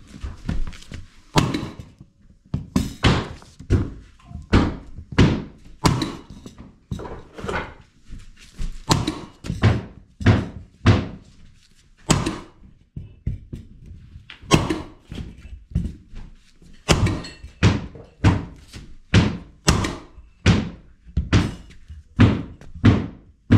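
Repeated heavy thuds, a little over one a second and unevenly spaced, each ringing briefly, with a couple of short pauses.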